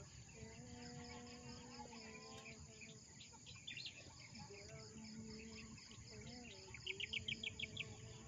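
Quiet outdoor ambience of insects buzzing steadily, with a rapid run of sharp chirps near the end. Under it, faint distant singing holds long notes.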